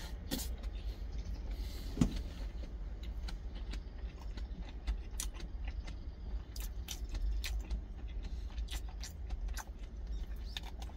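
Close-up eating sounds: chewing and lip smacks, with small clicks and scrapes of a wooden spoon against a stainless steel lunch tin and one sharper knock about two seconds in, over a steady low rumble.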